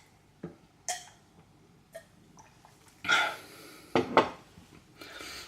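A few light clicks and knocks of tableware, with louder handling noise about three and four seconds in.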